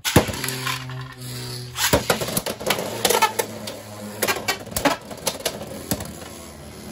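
Two Beyblade X spinning tops, DranSword and Hells Scythe, in a plastic stadium: a steady spinning hum for about the first two seconds, then a rapid run of sharp plastic clacks as the tops collide and rattle against the toothed stadium rail.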